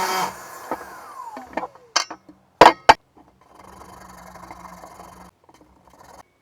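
A power saw's motor cuts off and winds down with a falling whine. Several knocks follow, the loudest a pair of sharp knocks about two and a half seconds in, then a short steady hum with hiss and a few faint clicks.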